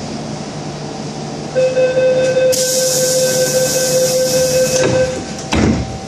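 MTR M-Train passenger doors closing: a steady door-closing warning tone starts about one and a half seconds in, a loud hiss runs under it for about two seconds while the doors slide shut, and a low thud about five and a half seconds in as they meet.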